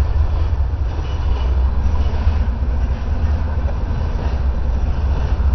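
Norfolk Southern diesel locomotives hauling a freight train of covered hoppers past, a steady rumble with no breaks.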